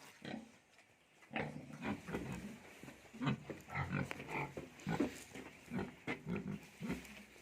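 Pigs grunting: a run of short, low grunts, several a second, starting about a second in.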